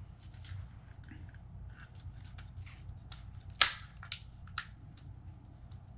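Plastic parts of a drone remote controller being handled and pressed into place in its housing: a run of small clicks and knocks, then a sharp snap about halfway through, followed by two lighter clicks.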